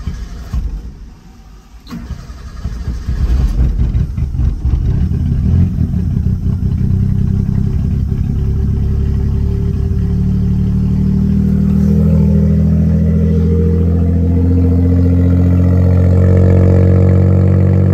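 Suzuki Cappuccino's three-cylinder turbo engine being started with carburetor cleaner still in the freshly cleaned throttle body: it catches about two seconds in, runs rough and uneven for several seconds, then settles into steady running for the second half.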